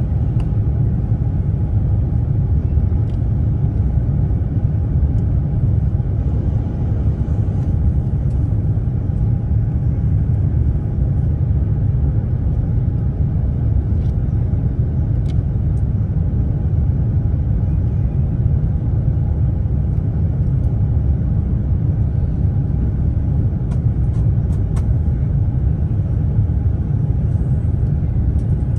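Airbus A350-1000 cabin noise on the descent into land: a steady low rumble of the Rolls-Royce Trent XWB-97 engines and airflow, heard from a window seat behind the wing, with a faint steady hum above it.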